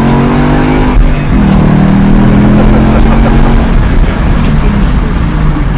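2017 Mustang GT's 5.0 Coyote V8 through its Ford Performance exhaust (a Borla S-Type design with no x-pipe resonator), heard from inside the cabin while driving: a loud, steady exhaust note that shifts pitch a couple of times.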